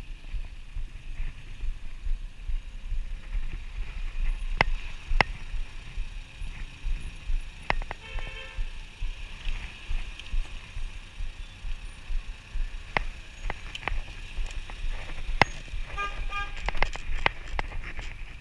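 Riding a city bicycle over a rough street: a steady low rumble of wind and road noise, with sharp rattling clicks from the bike over bumps. Short car-horn toots sound about eight seconds in and again twice near the end.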